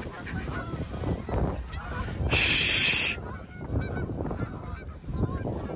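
A flock of Canada geese honking in scattered calls as they take off and fly away. A brief rush of hiss-like noise comes about halfway through.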